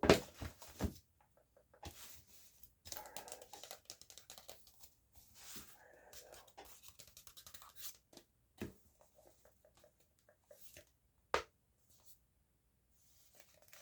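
Close-up rustling and scratching of paper being handled, with a cluster of sharp knocks at the start and two single sharp taps later on.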